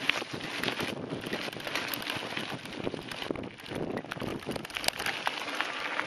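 Mountain bike riding over a dirt track: tyres crunching and the bike rattling, with many small clicks and crackles over a steady rush of wind on the microphone.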